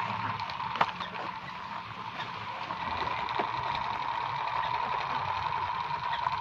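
Battery-powered plastic toy helicopter running, its small electric motor and gears whirring steadily with a constant high hum as the rotor spins. A sharp click about a second in.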